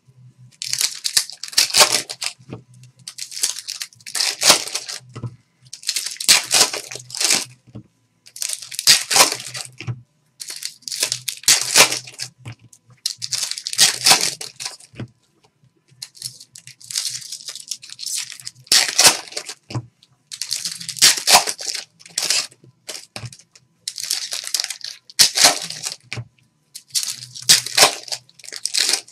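Foil trading-card pack wrappers being torn open and crinkled, one after another: about a dozen short bursts of tearing, each about a second long, every two seconds or so.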